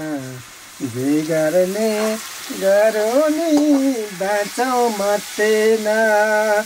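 Unaccompanied voice singing a Nepali folk song in long, wavering held notes, with food sizzling in a pan underneath.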